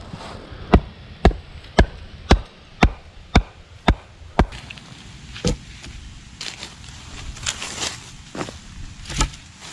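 A wooden stake being driven into the ground with a bark-covered wooden mallet: eight sharp blows, about two a second. After that come footsteps and rustling in dry leaves.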